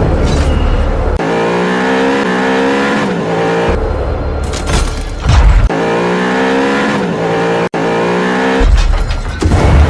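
Loud produced outro track of car engine revving sounds mixed with music. The same phrase of gliding engine-like tones repeats about every four and a half seconds, with heavy bass between the phrases.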